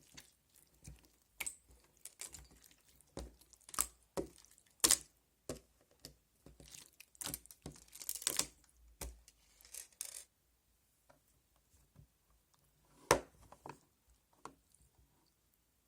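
Slime being squeezed and stretched by hand, giving irregular sharp pops and clicks as air pockets burst. Busy for about ten seconds, then only a few scattered pops.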